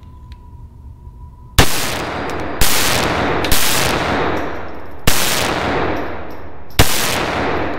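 A Ruger SR22 .22 LR semi-automatic pistol is fired five times at an uneven pace, starting about a second and a half in. Each shot is sharp and followed by a long echo off the concrete of an indoor range.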